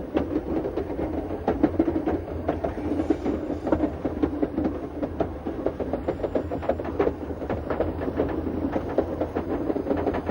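Schynige Platte rack railway train running uphill, with a steady low hum under dense, irregular clicking and rattling from the wheels and the Riggenbach rack.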